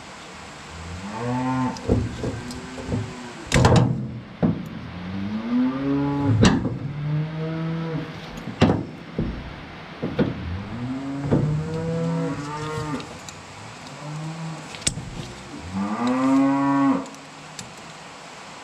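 Cattle mooing: several long calls that rise and fall in pitch, some overlapping. Between them come sharp metal clicks and knocks of a wrench working a nut on the picker's finger-wheel shaft.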